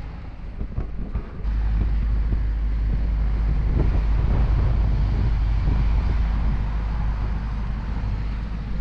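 Wind buffeting the microphone in a deep, steady rumble, over the running of helicopters nearby; the rumble jumps up suddenly about a second and a half in.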